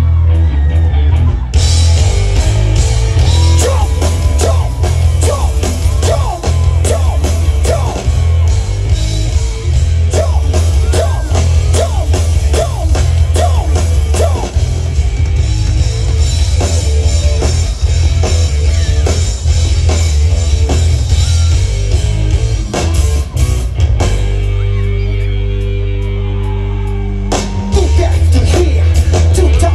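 Rock band playing live through a loud PA: drum kit, electric guitars, heavy bass and singing. About 24 s in, the band holds a sustained chord for about three seconds before the drums and full band come back in.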